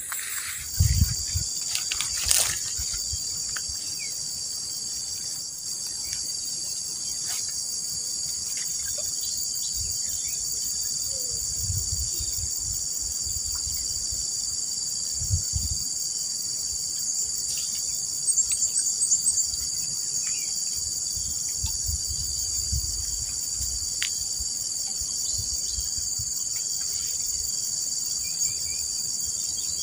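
A steady, high-pitched chorus of insects chirring without a break. A few short clicks and soft knocks sound here and there over it.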